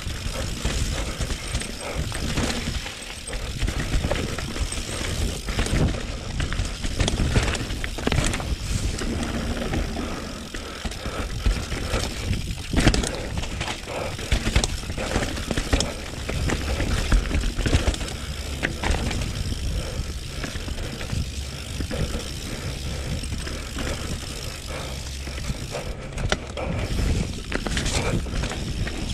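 Mountain bike descending a rough dirt and root trail: tyres rolling over the ground, with the chain and frame rattling and frequent knocks as it hits bumps.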